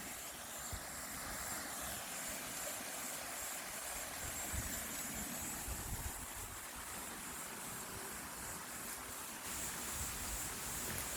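Steady outdoor hiss with a few soft, irregular low thumps of a hiker's footsteps.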